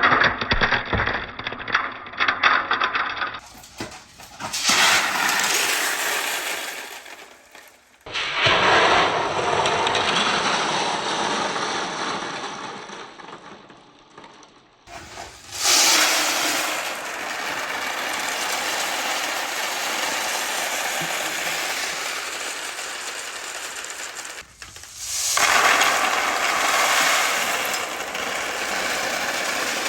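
Many marbles rolling and clattering down a marble run of wooden ramps. The sound comes in several stretches, each swelling into a dense rattle and then thinning out, with abrupt changes between them.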